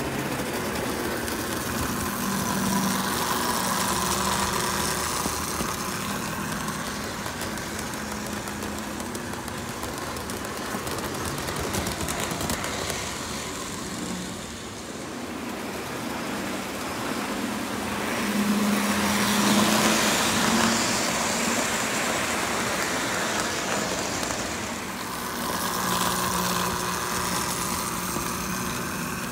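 Lionel O gauge model train running on its layout: a steady whir of the electric motor and rumble of wheels on the track. It swells louder a few seconds in, loudest about two-thirds through, and again near the end as the train comes close.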